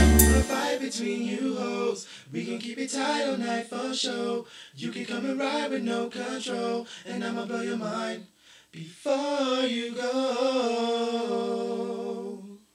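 A hip hop beat cuts off about half a second in, then a lone voice sings unaccompanied: wavering, drawn-out phrases with short gaps, ending in one long held note.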